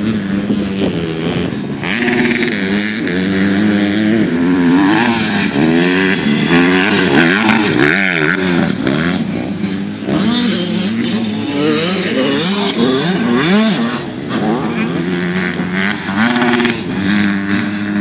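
Motocross bikes racing, their engines revving up and down through the gears, with several engines overlapping at different pitches. It is loudest over two stretches of a few seconds each as bikes come close.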